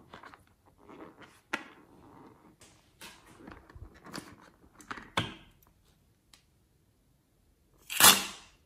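Hands squeezing and handling a slime-filled rubber balloon: scattered soft rubbing squeaks and rustles. Near the end comes a single loud, short sound as scissors cut the balloon's tip.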